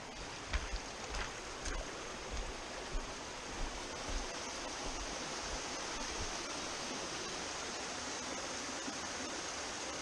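Small mountain stream cascading over rocks and small waterfalls: a steady rushing of water. In the first few seconds a series of soft low thumps, roughly one every half second to second, sits under the rush.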